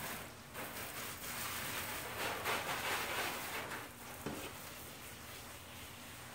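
Water from a garden hose spraying and splashing on a car's bodywork, a steady hiss that eases off somewhat after about four seconds.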